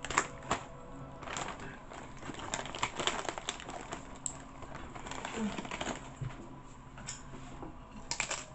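Close-up crunching and chewing of crunchy rolled tortilla chips (Takis), with a run of sharp crackly bites in the first few seconds.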